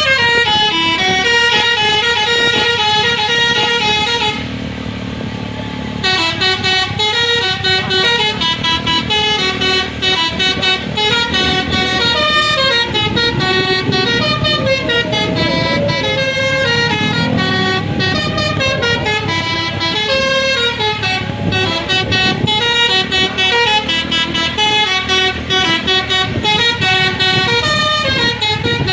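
Indonesian bus telolet horn, a multi-trumpet air horn, playing a stepping tune of bright tones. It pauses for about two seconds around four seconds in, then carries on.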